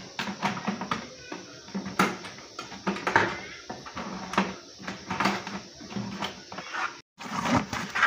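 Irregular knocks, clicks and rattles of hands handling an exhaust fan's metal blades inside a plastic bucket. The sound cuts out briefly about seven seconds in, then a short louder burst of rattling follows.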